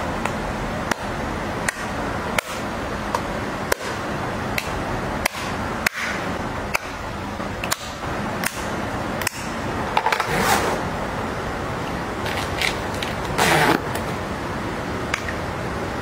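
Plastic cosmetic compacts and cases handled close up: a dozen or so sharp, irregular clicks and taps as lids snap open and shut, with a few short rustling scrapes, over a steady hiss.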